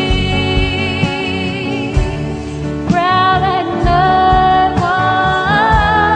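A woman singing a slow song in long held notes to guitar accompaniment.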